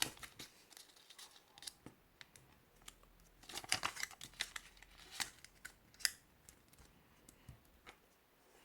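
A square of coloured origami paper being folded and creased by hand: faint, scattered rustles, crinkles and small taps, busiest around the middle.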